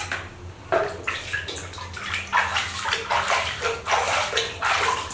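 Water splashing and sloshing in a plastic basin as a baby macaque is washed by hand, in a string of irregular splashes.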